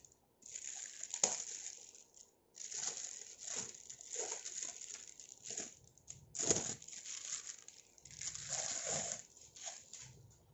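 Plastic wrapping crinkling and rustling as it is handled and pulled off a Bluetooth speaker, in irregular bursts with a few sharper crackles.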